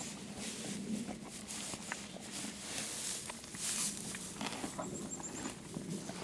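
Horses pulling hay through a hay net and chewing it: irregular crunching and rustling of dry hay.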